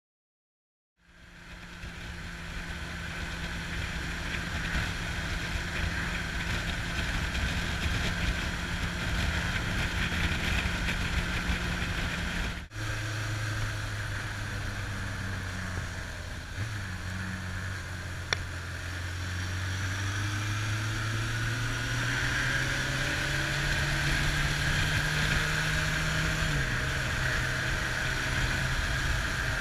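Onboard sound of a Kawasaki Zephyr's air-cooled inline-four engine pulling along a road, with wind rushing over the microphone. It starts about a second in and cuts abruptly near the middle. The engine pitch then climbs slowly and steps down once near the end at a gear change.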